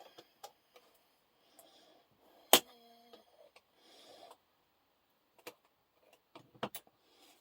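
Metal tools clinking and knocking on a small bench vise being taken apart: one sharp strike about two and a half seconds in that rings briefly, then a few lighter taps and clicks near the end.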